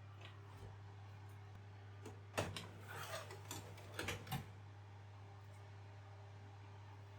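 A few light clicks and knocks of objects being handled, over a steady low hum.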